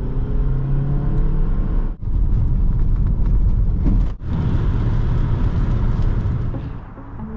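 Renault Laguna II's 1.8 16V four-cylinder petrol engine and road noise heard from inside the cabin while driving, in three short edited cuts that break off abruptly about two and four seconds in. The engine note rises during the first cut.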